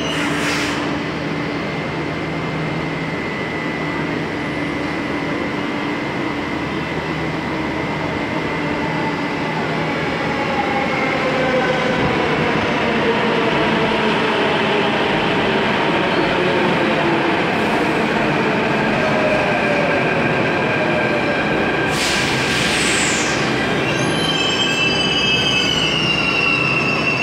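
Delhi Metro train running along the platform: a steady rumble of wheels on rail with whining tones that glide in pitch. A brief hiss comes about 22 seconds in, and high wheel squeal sets in near the end.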